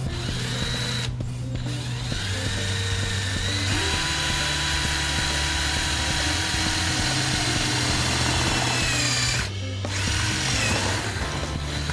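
Mitsushi cordless drill driver drilling into light aluminum: the motor's whine climbs in pitch about two seconds in and holds steady, then stops briefly near the end and runs again for about a second. Background music plays underneath.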